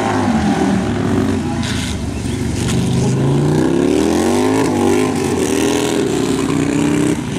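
Racing bagger motorcycle engine revving hard, its pitch climbing as it accelerates and falling away as the throttle comes off for the corners, several times over. The sound drops off abruptly near the end.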